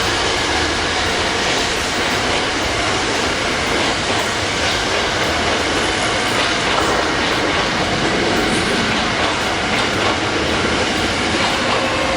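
A train running past close by: a steady, loud rush of wheels on the track, with faint high tones over it.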